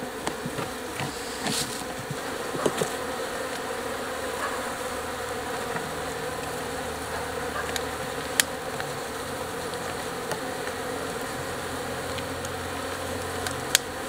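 A colony of African honeybees (Apis mellifera scutellata) buzzing steadily over an opened hive, with a few sharp clicks.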